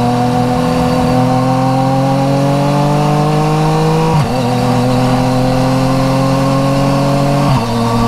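Yamaha MT-09 Tracer's inline three-cylinder engine through an Akrapovic titanium exhaust, pulling hard under acceleration with its pitch climbing steadily. It shifts up twice, about four seconds in and near the end, each time the pitch dropping sharply and then climbing again.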